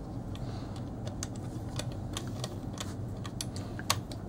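Irregular sharp clicks and knocks as a steel-tube chair frame is forced into the sockets of a plastic seat by hand, with one louder knock near the end.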